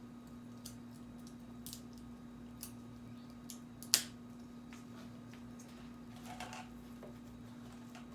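Faint clicks and taps of a food-colouring container and a small spoon being handled, with one sharp click about four seconds in, over a steady low hum.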